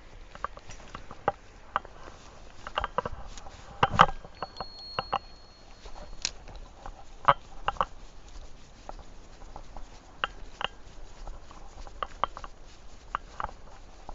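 Irregular knocks and clicks of footsteps on stream-bed stones, the loudest about four seconds in, with a brief thin high whistle just after.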